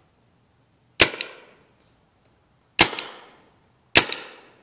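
Paintball marker firing three single shots, each a sharp pop with a short fading tail: the second nearly two seconds after the first, the third about a second later.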